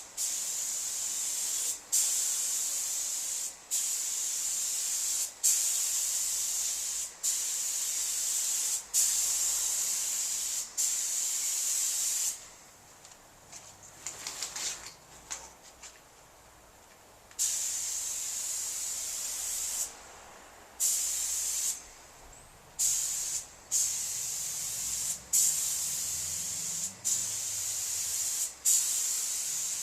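Paint spray gun hissing in repeated passes of about one and a half to two seconds each, with short breaks between as the trigger is let off, laying on a light first coat of paint. It stops for about five seconds in the middle, then resumes with shorter passes.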